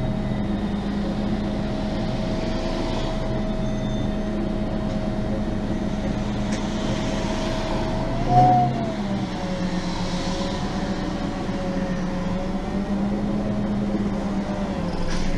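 Interior sound of a MAN NG 273 M18 LPG articulated city bus, its gas engine and Voith automatic gearbox running with a steady hum and whine. About 8 seconds in the whine jumps briefly with a louder moment, then settles lower and wavers.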